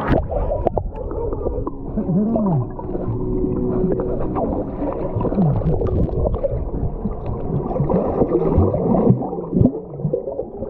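Muffled underwater sound in a swimming pool, picked up by a submerged camera: churning, gurgling water and bubbles, with a few short tones that rise and fall.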